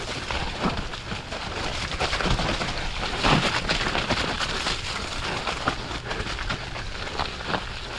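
Mountain bike riding down a dirt trail: tyres running over dirt and stones and the bike rattling over bumps, with many sharp knocks and a louder jolt about three seconds in.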